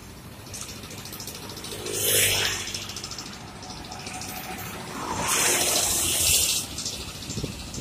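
Road traffic: two vehicles pass close by, each a hissing rush of tyre and engine noise, about two seconds in and again from about five seconds in, over a steady hum of traffic.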